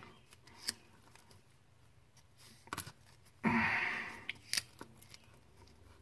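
A few faint sharp clicks and snips of small hand tools being handled, with one louder breathy rush of sound about halfway through.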